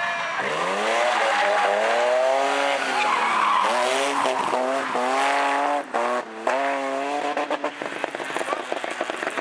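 BMW E30 rally car's engine revving hard, its pitch sweeping up and down several times, with a short drop about six seconds in, while its tyres skid and squeal through a sideways slide. Near the end the engine note turns choppy and stuttering.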